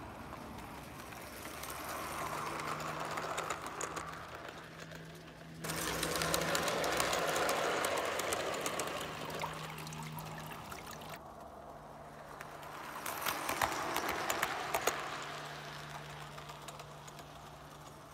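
O gauge model train running on garden track, its wheels clicking over the rail joints along with a faint motor hum. The sound swells and fades three times as the train comes close, with two abrupt jumps between passes.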